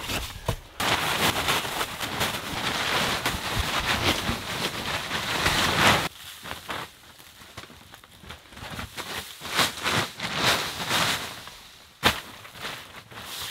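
A snow shovel scraping and tossing loose, sugary snow: a steady rough rushing that stops abruptly about six seconds in. Then softer, irregular crinkling of a plastic tarp and a heavy blanket being spread over the floor, with one sharp tap near the end.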